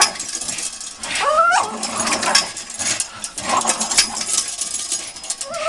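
Dogs tugging and hanging from hanging rope toys: a dog gives a rising whine about a second in, over continual scuffling and rattling clicks.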